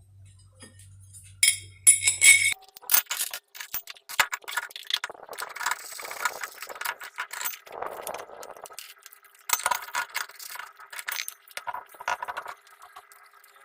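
Tiered serving stand being assembled by hand: repeated clinks, rattles and scraping as its tiers and fittings are put together and screwed on, loudest about two seconds in and again near ten seconds.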